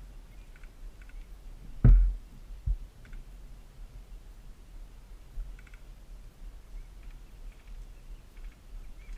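A heavy, low thump about two seconds in and a lighter knock just after, over faint scattered clicks and a low rumble.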